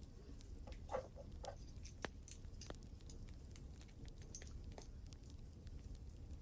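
Wood fire crackling: irregular sharp pops and ticks over a low, steady rumble.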